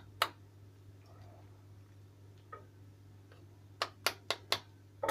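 Sharp knocks of a kitchen knife striking a chicken thigh bone and the glass cutting surface beneath it: one just after the start, then a quick run of four about four seconds in. A steady low hum runs underneath.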